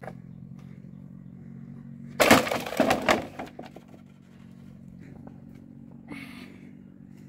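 Long green bamboo pole dropped onto a pile of cut bamboo poles: a loud hollow clattering crash about two seconds in, followed by a few lighter knocks as the poles settle.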